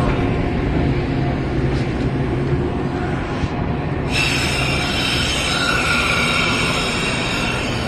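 Metra bilevel commuter train cars rolling past close by: a steady rumble of steel wheels on the rails. From about four seconds in, a thin high wheel squeal is added.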